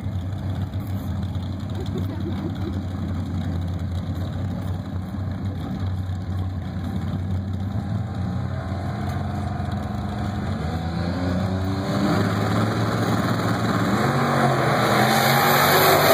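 Two drag racing cars, a turbocharged Buick Regal and a rail dragster, running at the starting line with engines idling and revving. About three-quarters of the way through they launch, and the engine sound rises in pitch and grows louder as they accelerate.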